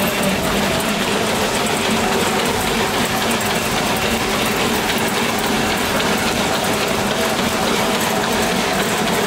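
Several Woodway curved non-motorized treadmills spinning under sprinting runners, with a steady rapid clatter of belt slats and footfalls. The belt speed is set only by how hard each runner pushes.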